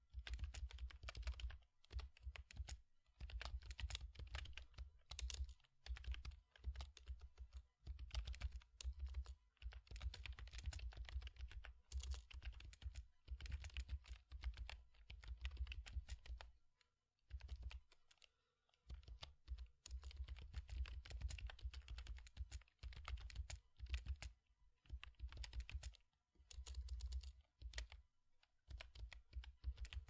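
Typing on a computer keyboard: rapid runs of key clicks lasting a few seconds each, broken by brief pauses.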